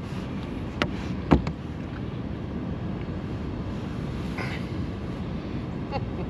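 Steady wind and water noise around an open bass boat, with two sharp knocks about a second in as a freshwater drum is handled in a landing net on the deck.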